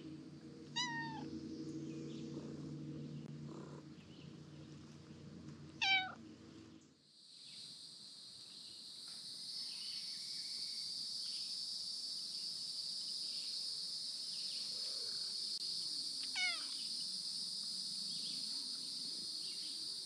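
Domestic cat meowing three times, each a short call falling in pitch: about a second in, louder around six seconds, and again near the end. A low steady hum lies under the first third, and from about seven seconds a steady high insect buzz fills the background.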